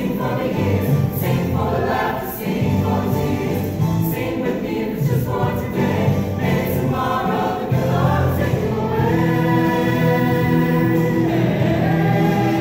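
A choir singing, with held notes in the second half.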